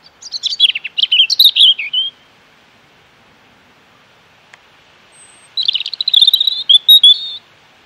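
American robin calling: two bursts of rapid high chirping notes, each about two seconds long, with a pause of about three and a half seconds between them.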